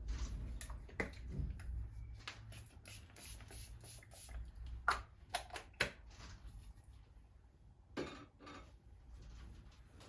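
Small objects being handled: a series of light clicks and taps, the sharpest about five seconds in, over a low rumble that fades after about six seconds.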